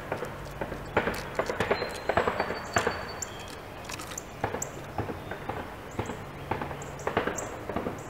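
Red-bellied woodpecker moving about on a wooden box feeder: irregular light taps, clicks and scratches on the wood. Faint short high chirps of other birds come in now and then.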